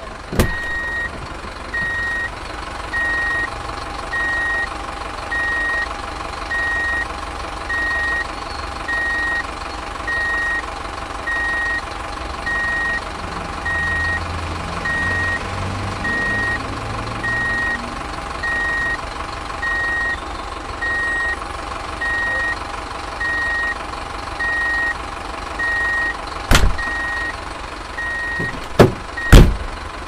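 Truck reversing alarm beeping steadily, roughly one beep a second, over a running truck engine. A few sharp, loud knocks: one just after the start and three near the end.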